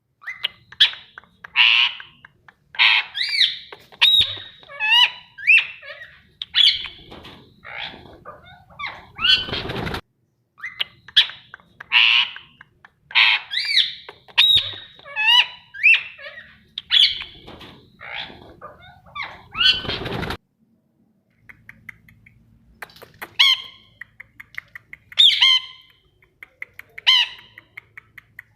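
Pet parrot calling in a quick series of squawks and whistled chirps, with sudden breaks about ten and twenty seconds in, followed by sparser calls.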